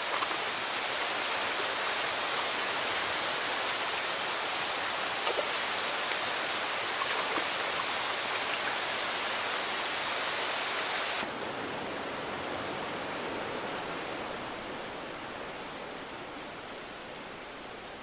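Water pouring over a small waterfall with a steady rush. About eleven seconds in, it cuts to a quieter, duller sound of flowing water that slowly fades.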